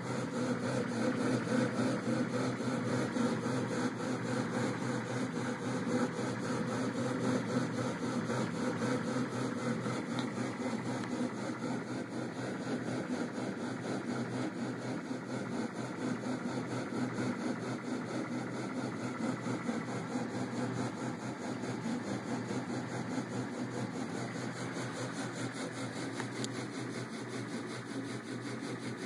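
Stepper motors of a homebuilt mUVe 3D printer driving its X and Y axes on a first motion test: a steady mechanical hum.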